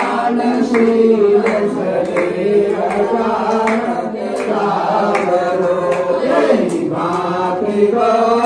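A group of voices singing a Hindu devotional hymn together, with sharp beats keeping time about twice a second.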